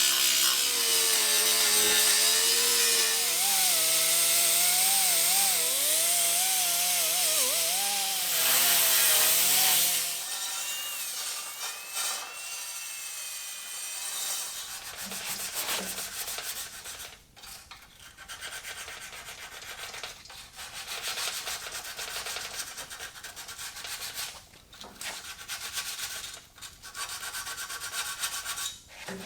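Grinder running against a welded steel patch panel, its pitch wavering as it loads up on the weld seam, then stopping about ten seconds in. Quieter, broken scraping and rubbing on the metal follow.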